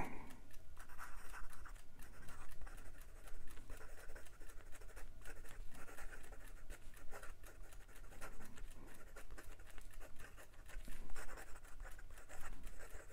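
Steel nib of a Leonardo Momento Magico fountain pen writing quickly on notebook paper: a continuous run of light, irregular scratching strokes. The nib is writing very wet and without skipping.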